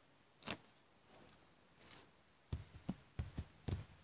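Handling noise of a sheet of notebook paper being held up and moved close to the microphone: a sharp click about half a second in, then a quick run of soft knocks and rustles in the second half.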